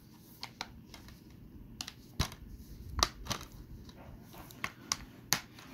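Plastic DVD case being handled by hand: scattered light clicks and taps, the strongest about two and three seconds in.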